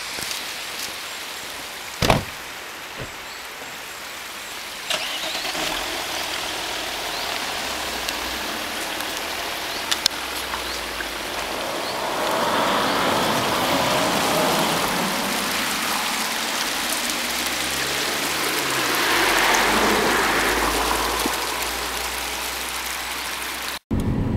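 Road vehicles passing, swelling twice in the second half over a steady rushing noise, with a few sharp knocks in the first half.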